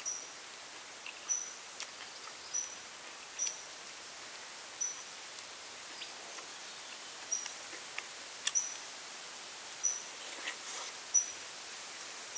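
A bird repeating a short high chirp about once a second over a steady outdoor background, with a few sharp clicks, the loudest about two-thirds of the way in.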